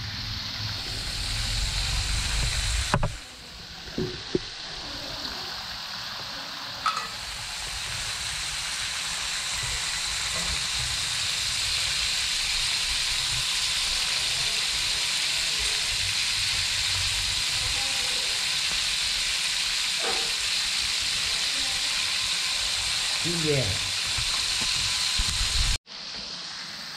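Food frying in hot oil in a pan over a high flame, a steady sizzle. A low rumble fills the first three seconds and stops abruptly, and the sizzle breaks off suddenly shortly before the end.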